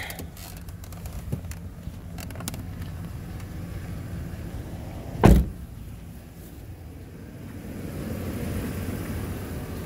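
GMC Savana cargo van running at idle as the driver's door is opened and, about five seconds in, shut with one loud thump. A broader rushing noise swells near the end.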